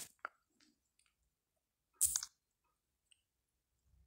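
Mostly quiet, with a sharp click at the start, a softer click just after, and a short noisy rustle about two seconds in.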